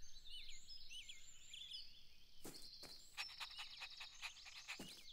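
Faint garden ambience of birds chirping in short, quick calls, with a few sharp clicks and a rapid run of clicking a little past the middle.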